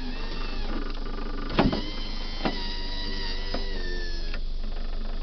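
Electric window regulator motor in a 2003 Toyota Matrix door running steadily, raising the door glass. There is a sharp knock about a second and a half in and a lighter click about a second later. The motor stops a little over four seconds in.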